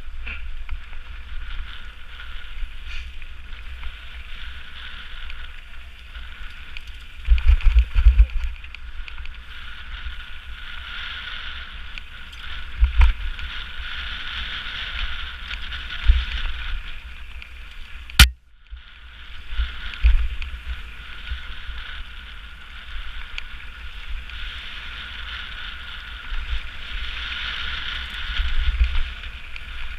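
Mountain bike riding fast down a gravel singletrack: a steady hiss of tyres rolling over loose gravel, with low thumps as the bike jolts over bumps, heaviest about eight seconds in and again near the end. A single sharp click about eighteen seconds in.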